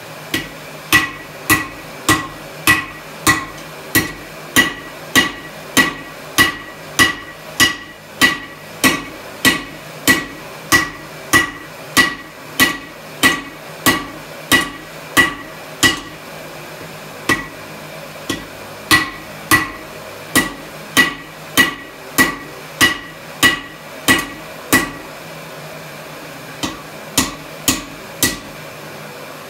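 Blacksmith's hammer striking hot steel on an anvil while forging a drawknife: steady blows at about two a second, each with a short metallic ring. The rhythm breaks briefly twice in the second half, and the blows stop shortly before the end.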